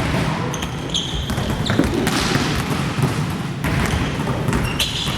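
Basketballs bouncing on a gym floor during team drills, with short high sneaker squeaks about a second in and near the end.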